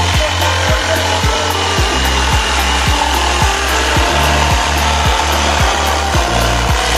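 Makita JV103D cordless brushless jigsaw cutting steadily through a wooden board, with a continuous rasping saw noise. Background music with a steady beat and bass line plays under it.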